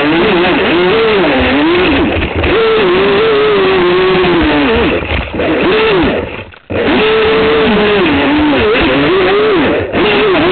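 Aquacraft SV27 RC boat's electric motor whining at speed, its pitch rising and falling repeatedly with throttle changes, over rushing water and wind noise on the onboard camera. The sound drops out briefly about six and a half seconds in.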